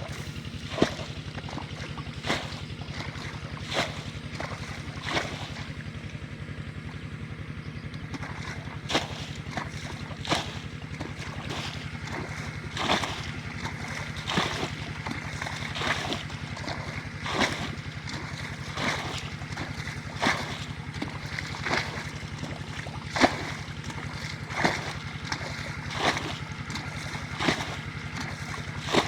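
A small engine running steadily, with a short sharp slap or knock recurring about every second and a half, typical of a small motorboat's engine with water slapping the hull.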